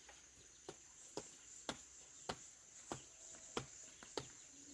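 A hand tool striking over and over at an even pace, about seven chopping blows a little more than half a second apart. A steady, high insect drone runs underneath.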